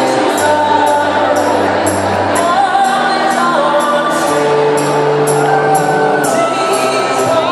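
Live band playing a song with a singer, heard loud from inside the concert crowd. A steady beat of short high percussion hits comes about twice a second under sustained sung and instrumental notes.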